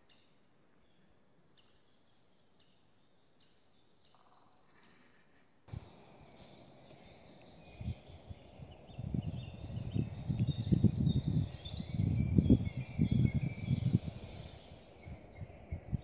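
Small songbirds chirping and singing in high, thin notes, faint at first and fuller from about six seconds in. From about nine to fourteen seconds, irregular low rumbling buffets, like wind on the microphone, are the loudest sound.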